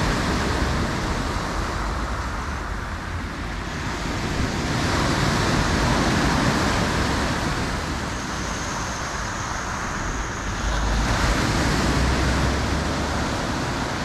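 Black Sea surf breaking and washing up a pebble beach, the rush swelling and fading about every six seconds, over a low rumble.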